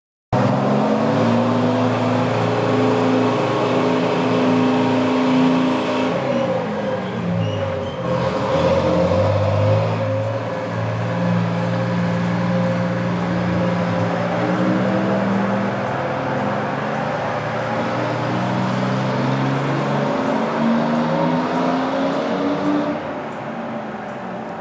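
Vintage American LaFrance fire truck engine running, starting abruptly. Its pitch falls about six to eight seconds in, then rises and falls again over the rest of the stretch.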